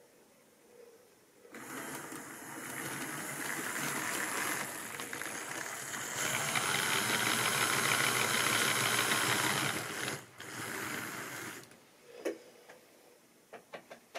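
Tri-ang model train running on its track: the small electric motor whirs and the wheels rattle over the rail, growing louder with a faint rising whine for about ten seconds, then cutting off. A few light clicks follow near the end.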